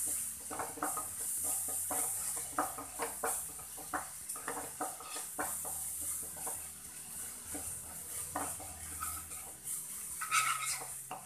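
Wooden spatula stirring and scraping onion-tomato masala around a non-stick kadhai in irregular strokes, over a steady frying sizzle.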